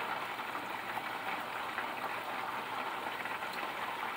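Rice and peas boiling in seasoned water in a saucepan: a steady bubbling hiss, with a few faint ticks.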